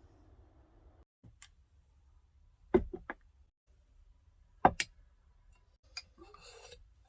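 Several sharp knocks and clicks of objects being handled. The two loudest come about three and five seconds in, each followed closely by lighter clicks. A short scraping rustle follows near the end.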